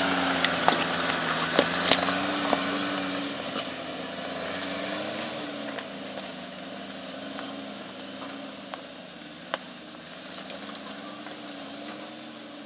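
Suzuki 4x4's engine pulling the vehicle slowly up a steep rocky track, its note wavering up and down and fading as it moves away. A few sharp cracks in the first two seconds.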